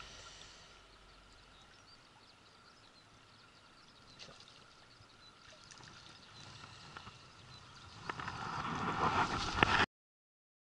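Faint running water of a shallow stream, with scattered small clicks and knocks. About two seconds before the end it grows louder, then cuts off suddenly.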